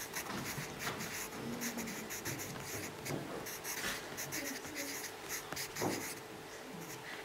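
Pencil writing on paper: short scratching strokes of the lead across the sheet, with brief pauses between words.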